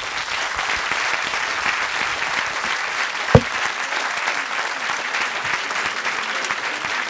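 Audience applauding steadily. A single dull thump sounds a little over three seconds in.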